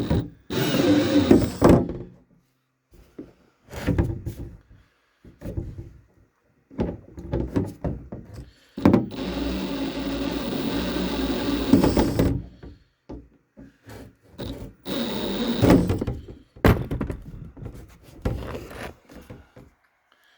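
Hand work on a plastic fuel tank fitting and fuel line: irregular knocks and thunks with longer stretches of scraping and rubbing, the longest about halfway through.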